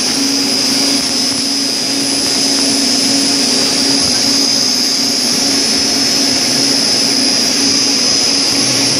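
Steady, loud whoosh of cooling fans in an electrical equipment room, carrying a constant low hum and a high-pitched whine.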